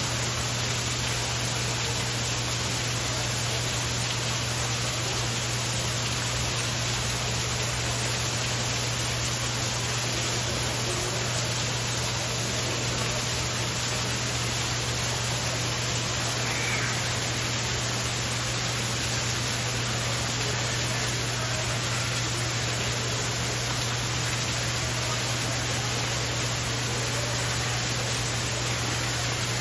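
Steady, even hiss with a constant low hum underneath, unchanging throughout.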